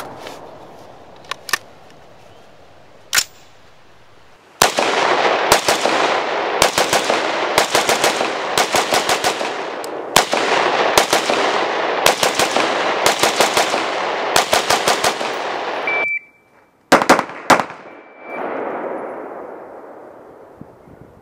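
Rifle gunfire: a few single shots, then from about four seconds in a long run of rapid strings of shots with echo behind them, a short break, a few more shots, and the echo dying away near the end.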